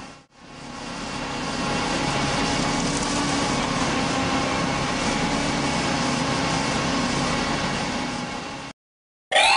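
Heavy truck engine running steadily, the sound given to a cement mixer truck. It dips out briefly at the start, swells back in, and cuts off abruptly near the end.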